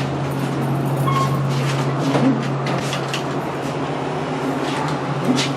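Elevator running: a steady low hum under an even rumble, with a few faint clicks.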